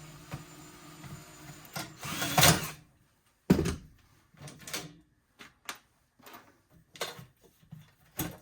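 Handling noises from dismantling a small electric melting furnace: a scrape about two seconds in, a sharp knock, then a run of short clicks and taps.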